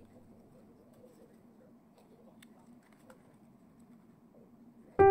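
Near quiet with a few faint, light ticks from small pieces being handled, then piano music comes in loudly right at the end.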